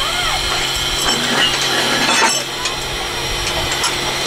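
Steady hiss and hum inside the cab of a Shay geared steam locomotive under steam, with scattered light metallic clinks.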